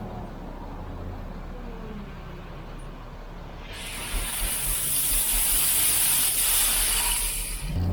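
A vehicle engine running low and steady, then a loud, even hiss starts about four seconds in and cuts off abruptly near the end.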